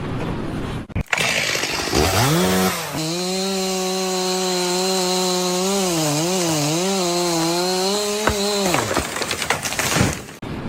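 A small high-revving motor, of the power-tool kind, speeds up about two seconds in and runs at a steady high pitch over a hiss. Its pitch dips briefly a few times, and it winds down near the end.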